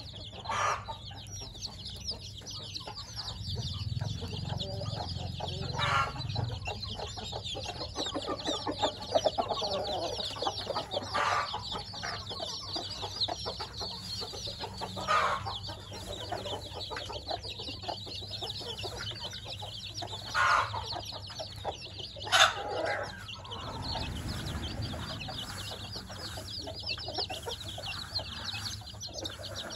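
A brood of one-week-old chicks peeping continuously in a dense, high-pitched chorus, with about half a dozen louder calls standing out every few seconds.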